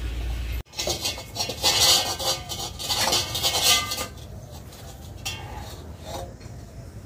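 Stainless steel plates and bowls clattering and clanking against each other as they are washed by hand, loudest in the first few seconds, then lighter, scattered clinks. Under a second in, a steady low hum stops abruptly.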